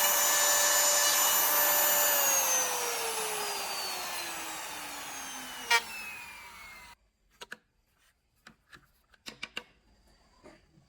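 Circular saw motor running with a steady whine, then switched off about two seconds in and coasting down, its pitch falling steadily as the blade slows. There is a sharp click partway through the wind-down; the sound then cuts out abruptly, followed by a few light knocks and taps.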